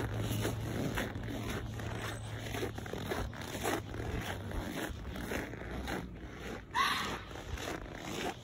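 Footsteps crunching in packed snow at a walking pace, with a short, louder rising squeak about seven seconds in.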